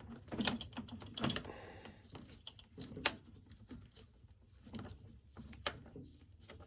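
Scattered clicks and light knocks of a hand tool and plastic parts as a screw is worked into a string trimmer's guard and tightened.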